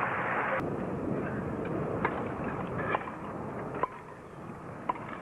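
Crowd applause that cuts off abruptly about half a second in, then a tennis rally: four racket strikes on the ball about a second apart.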